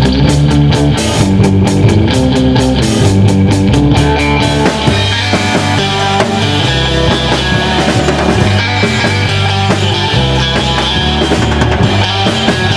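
Live rock band playing an instrumental: electric guitar, bass guitar and drum kit, amplified and loud. The drum strikes stand out most in the first four seconds or so, then the guitars carry the sound.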